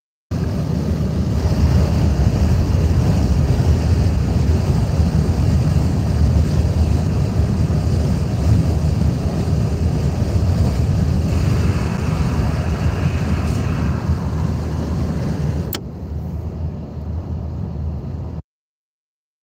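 Steady road noise inside a car cruising on a motorway: a deep tyre and wind rumble with a hiss on top. A single sharp click comes about sixteen seconds in, after which the noise is a little quieter and duller.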